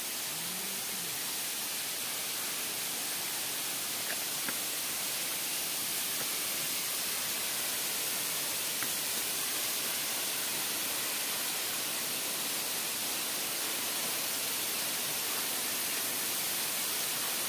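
Waterfall rushing steadily: an even, unbroken hiss strongest in the upper range.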